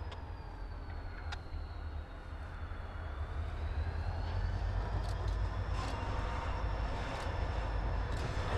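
CSX diesel freight train moving tank cars, a steady low rumble with faint high wavering tones over it.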